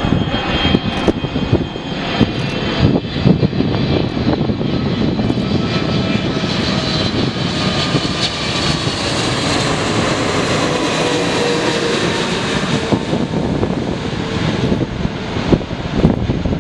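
Jet airliner's engines passing close by: a loud, steady rush of engine noise that swells in the middle, with a faint whine slowly falling in pitch as it goes away.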